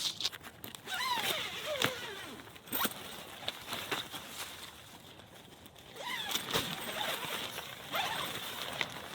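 Footsteps crunching in snow, in two bouts, with squeaky creaks under each step.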